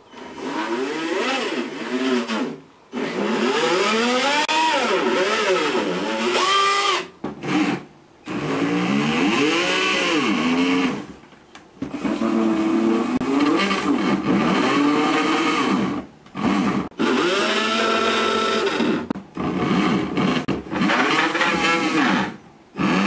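Several pitched tones sliding up and down in arching swoops, in phrases of a few seconds broken by short pauses.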